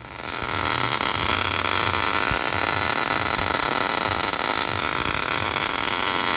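Electric arc welding: the arc's steady hiss and crackle as steel C-gussets are welded onto the C-channels of a Dana 30 front axle.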